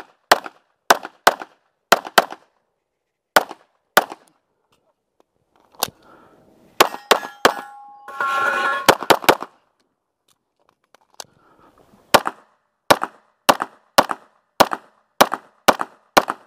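Pistol fired rapidly in strings during a practical-shooting stage: quick pairs and runs of shots, a pause of about two seconds in the middle, then a fast run of a dozen or so evenly spaced shots near the end. A longer ringing noise comes about eight seconds in, among the shots.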